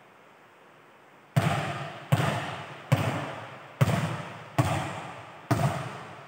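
A volleyball bounced on a hard indoor court floor, six times about every 0.8 s after a quiet first second and a half. Each bounce rings out in the echoing hall.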